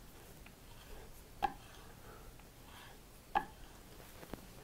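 A chisel worked on a strop: a few faint rubbing strokes, with two sharp clicks about two seconds apart as the steel tool is handled.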